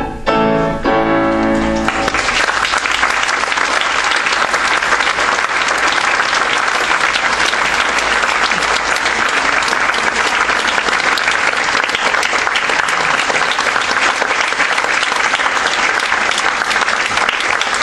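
Grand piano playing the last chords of an operatic aria, ending about two seconds in, then a large audience applauding steadily.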